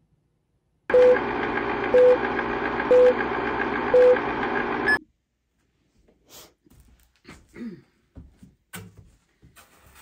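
Edited-in countdown-style sound effect: four short, even beeps one second apart over a steady hiss, which stops abruptly after about four seconds. After it come faint scattered handling knocks and rustles.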